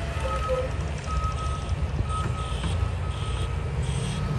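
Salt-spreading truck's backup alarm beeping, a steady single-tone beep about once a second, over the low rumble of the truck's engine.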